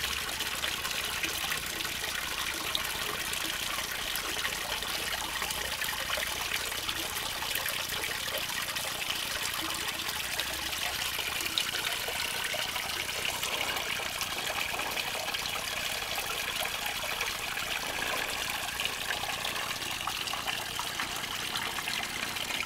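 Small garden-pond waterfall spilling down stacked stones into the pond: a steady splashing trickle of falling water.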